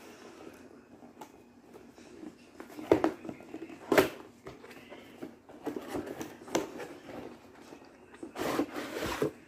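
Cardboard product box being handled and opened by hand: scattered sharp taps and clicks of the box, the loudest two about three and four seconds in, and a papery rustle near the end.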